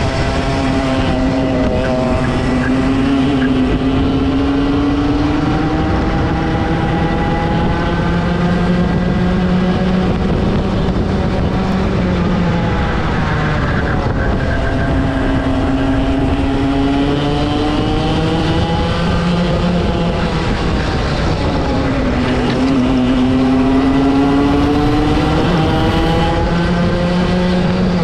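Racing kart's Rotax two-stroke engine. It climbs steadily in pitch for several seconds, then drops off sharply, three times over: pulling up through the revs on each straight and falling back when the kart brakes for a corner.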